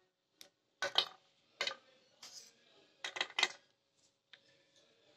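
Short clinks and taps of spoons against small serving bowls and a plate, about eight separate knocks, several close together past the middle.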